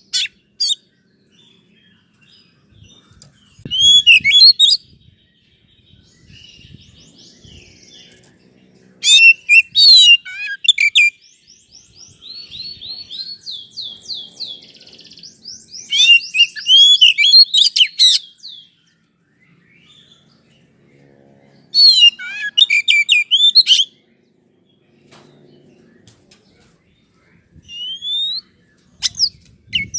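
Oriental magpie-robin (kacer) song played as a lure to set a caged kacer singing: loud bursts of fast, varied whistled phrases and trills, about six in all, with short pauses between them.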